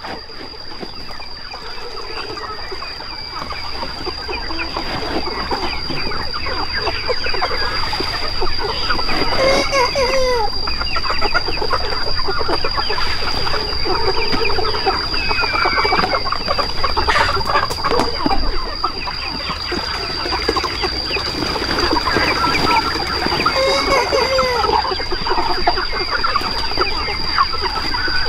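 A large flock of free-range chickens clucking and calling over one another, the chatter growing louder over the first few seconds. A steady high-pitched whine runs underneath throughout.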